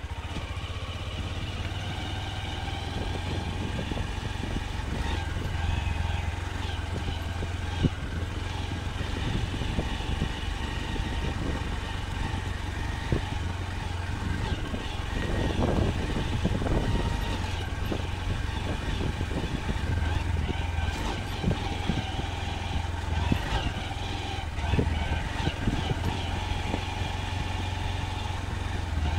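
Honda SP 125's 124 cc single-cylinder engine running as the motorcycle rides over a rough dirt track, with scattered knocks and rattles from the bumpy ground. It grows louder for a moment about halfway through.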